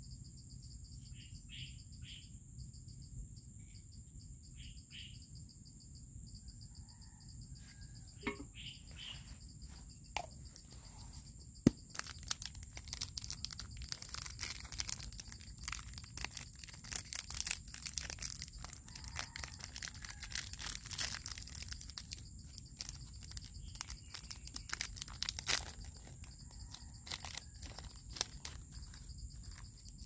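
A steady, high-pitched chorus of insects, and from about twelve seconds in, the crinkling and tearing of a small plastic snack packet being opened by hand, with one sharp click near the start of it.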